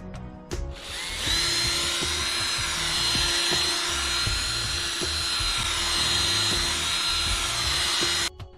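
Electric drill with a foam polishing pad spinning at a steady speed, buffing polish into oxidised matte vinyl decals. It starts about a second in, runs with a constant whine, and cuts off suddenly near the end.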